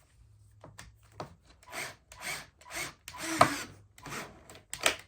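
Rhythmic rubbing strokes on wood, about two a second, with a single sharp click near the end.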